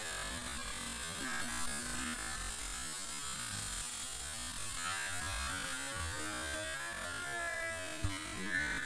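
Faint, steady background hiss and low hum with a few faint wavering tones. No distinct crash impact stands out.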